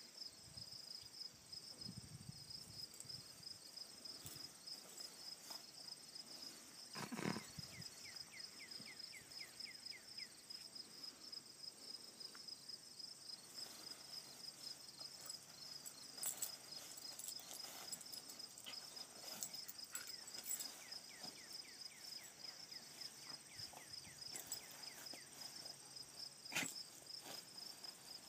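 Insects chirping in a steady, high-pitched, fast-pulsing chorus, with faint scuffs of a dog rolling and rubbing on artificial turf. One short, louder sound comes about seven seconds in.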